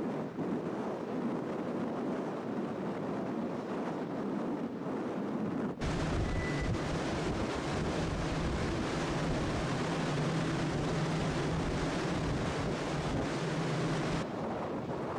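Wind on the open deck of a large ferry under way, over the ship's steady machinery drone. About six seconds in, the sound cuts to a louder, lower rumble with a steady hum that stops a second before the end.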